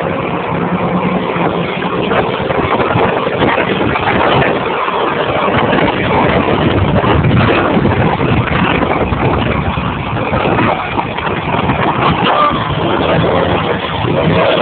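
Car travelling at highway speed, heard from inside: a steady rush of wind and road noise, with a faint low engine hum underneath.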